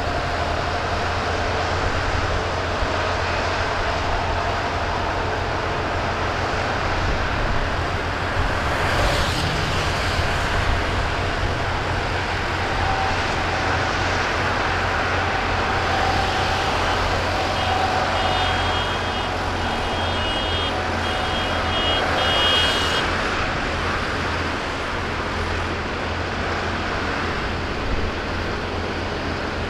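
A column of farm tractors driving past, with a steady rumble of diesel engines, swelling twice as tractors pass close. Partway through, a run of short high-pitched beeps sounds over the engines.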